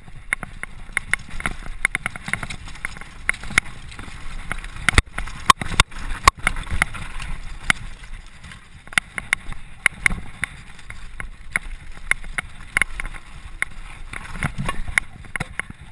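Mountain bike descending a rough dirt forest trail: a fast, irregular run of sharp rattles and knocks from the bike over bumps, over a steady low rumble of tyres and wind. A cluster of hard knocks comes about five to six seconds in.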